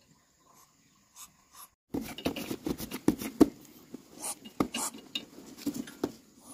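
Knocking and clattering of things being handled, starting suddenly about two seconds in after a nearly quiet start with a few faint clicks.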